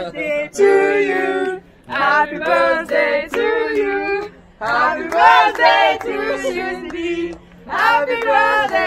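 A small group of people singing a birthday song together without accompaniment, in four phrases with short breaths between them.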